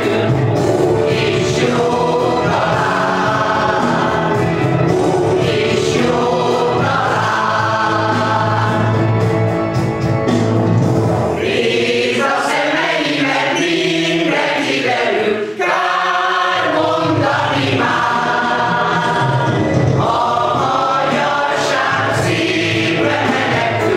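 Mixed choir of women's and men's voices singing a song in several parts. The low voices fall away for a few seconds past the middle, leaving the upper parts, then come back in.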